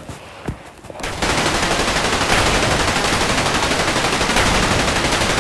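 Machine-gun fire, a continuous fast stream of shots that starts about a second in and does not let up.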